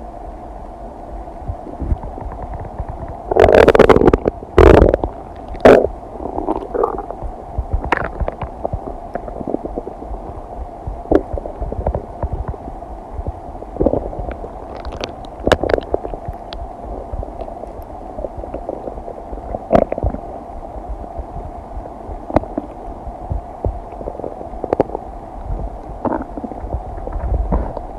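Human stomach and intestines gurgling while digesting food: a loud burst of gurgles about four seconds in, then scattered shorter gurgles and pops over a steady low background.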